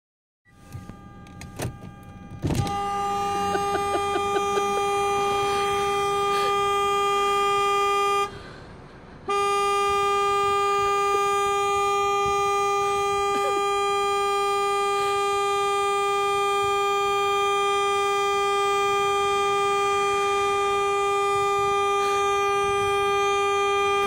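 Car horn sounding in long, steady blasts as a dog in the driver's seat leans on the steering wheel: a few soft knocks, then one blast of nearly six seconds, a second's break, and another unbroken blast that keeps going.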